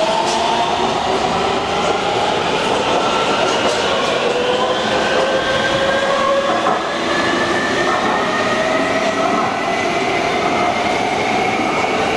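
Taipei Metro Blue Line train pulling out of an underground station: its motors whine in several tones that rise slowly and steadily in pitch as it speeds up into the tunnel, over a steady rush of wheels on rail.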